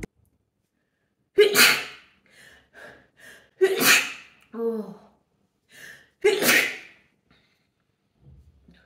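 A woman sneezing three times, each sneeze sudden and loud and about two and a half seconds apart, with quick breaths between them.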